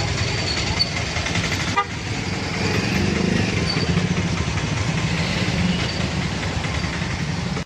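Busy street traffic: motor scooters and cars running past, with horns tooting now and then. A single short knock comes just under two seconds in.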